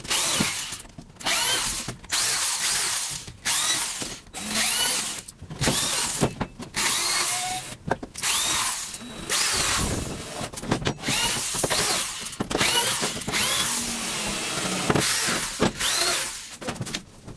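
Corded electric drill run in short bursts, about one a second, each with a motor whine that winds up and then dies away, as 2x4 framing is fastened to the truck body's metal frame.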